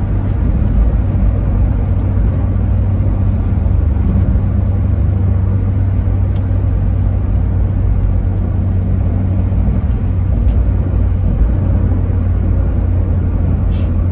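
Steady engine and road noise inside a moving car's cabin, a constant low rumble. There are a couple of faint clicks, one about ten seconds in and one near the end.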